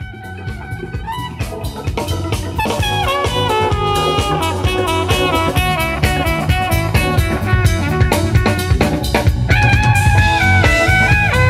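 Live band music: a drum kit with bass drum under a strong bass line and a pitched melodic lead, swelling up in level over the first couple of seconds.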